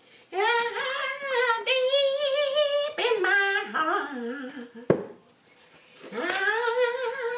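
A high, wavering voice singing or wailing without words in long drawn-out notes, in two phrases, with a sharp click about five seconds in, between them.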